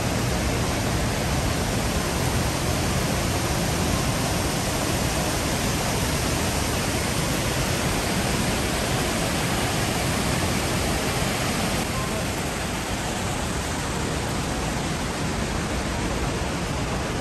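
The Rhine Falls, a large river waterfall, rushing with a steady, dense roar of falling water, a little softer in the last few seconds.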